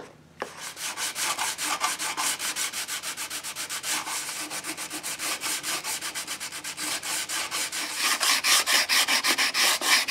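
Hand scraping and sanding along a wooden cove molding, cleaning excess hardened epoxy off a repair: a steady run of quick back-and-forth strokes, about five a second, that gets louder about two seconds before the end. Sandpaper wrapped round a round dowel is rubbed along the groove.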